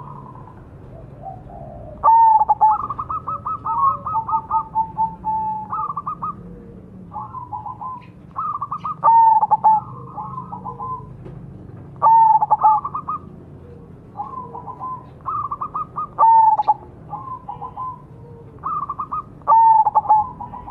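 Zebra dove (perkutut) cooing: phrase after phrase, each a loud opening note followed by a fast run of short staccato coos, repeated every few seconds.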